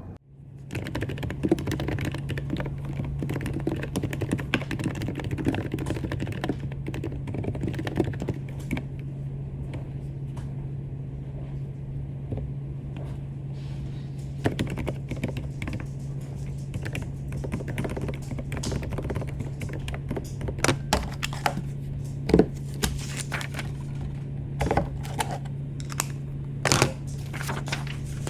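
Continuous typing on a computer keyboard: a dense run of key clicks, with a few louder key strikes in the second half, over a steady low hum.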